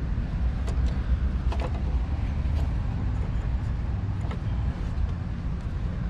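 A steady low rumble, with a few faint clicks and rustles of insulated wires being handled in an air-conditioner's control panel.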